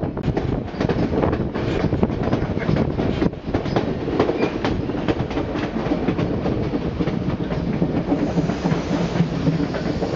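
White Pass & Yukon Route narrow-gauge train rolling along the track, its wheels clattering steadily over the rail joints.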